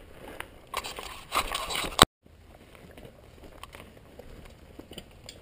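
Gravel and dirt crunching and scraping on a rocky trail, loud for about a second, then cut off abruptly about two seconds in; after that only faint scattered clicks and crunches of small stones.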